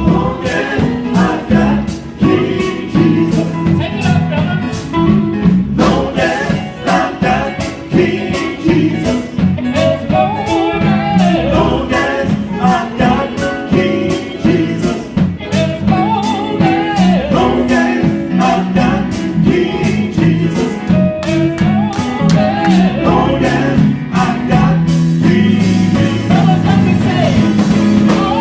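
Gospel group singing with a live band, a regular drum beat underneath. Near the end the separate beats give way to a steady high cymbal wash.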